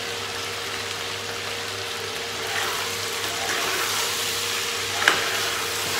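Pork cubes sizzling in a pot, with a steady hum underneath. From about halfway through, a metal ladle stirs and scrapes the meat against the pot, with one sharp clank near the end.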